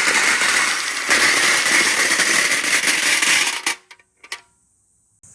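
Many marbles rolling and clattering down a marble-run track in a dense, continuous rattle that cuts off sharply near the end, followed by a couple of short clicks.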